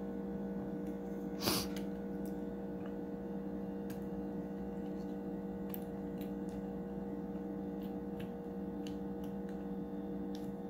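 A steady electrical hum, with faint scattered clicks of a small screwdriver working the tiny retaining screw of a laptop's WiFi card, and one louder knock about a second and a half in.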